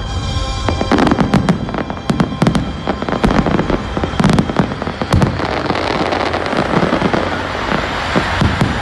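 Fireworks going off: a rapid volley of sharp bangs starting about a second in, merging into a dense crackle of bursting shells later on.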